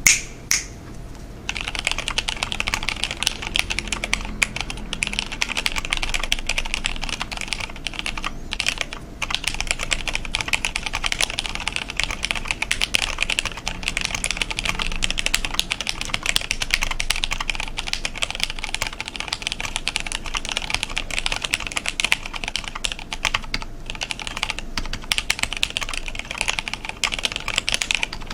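Continuous fast typing on a custom J80-layout mechanical keyboard with Cherry MX Black linear switches, 55 g springs and BSP keycaps: a dense run of key clacks that starts about a second and a half in, with a couple of brief pauses.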